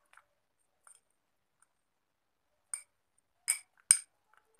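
A spoon clinking against the side of a small glass bowl while stirring a thick face-pack paste: a few short, ringing clinks, faint at first, with three sharper ones in the second half.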